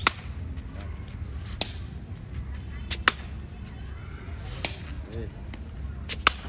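Shuttlecock (Khmer sey) being kicked back and forth with the feet: sharp slapping kicks about every second and a half, five in all.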